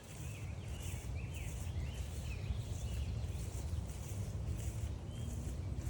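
Footsteps crunching on a trail at a steady walking pace, about three steps every two seconds, over a low rumble of wind on the microphone. A songbird gives a quick run of chirps in the first two seconds or so, and one more near the end.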